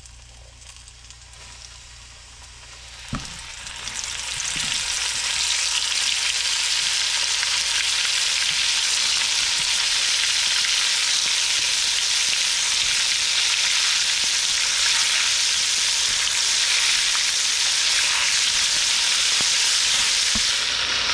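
Flour-coated black morel mushrooms frying in hot peanut oil. There is a click about three seconds in, then the sizzle builds and holds steady and loud.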